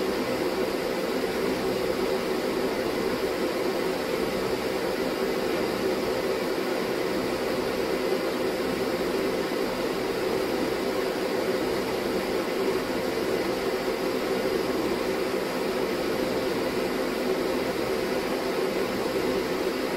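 Steady hum and hiss of a running fan-like machine, unchanging throughout.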